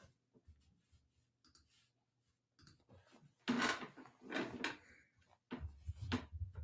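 Near silence, then from about halfway through a few short rustling, shuffling sounds of someone moving close to a desk microphone, ending in a low rumble with small knocks of handling.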